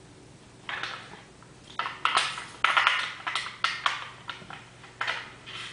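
Irregular scraping and rustling strokes of a cleaning rod pushing a wad of toilet paper through an airsoft P90's inner barrel, the loudest strokes coming in quick runs in the middle.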